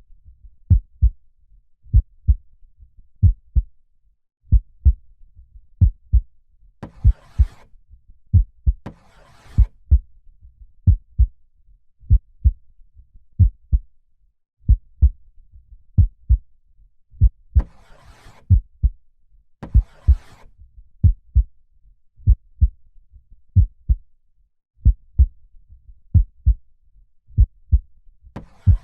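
Heartbeat: paired low thumps, lub-dub, repeating evenly at about one beat a second. Roughly every ten seconds a slow breath in and out is heard as two soft rushes of air over the beat.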